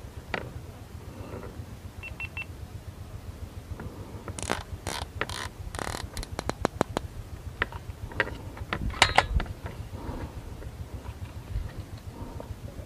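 Handling noise from a scoped PCP air rifle: a quick run of about a dozen clicks, typical of a scope turret being turned, then a louder clatter of clicks and knocks about nine seconds in, over a steady low rumble.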